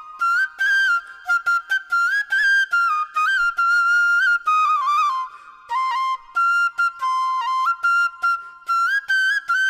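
Background music: a solo flute playing a melody in short, stepping phrases.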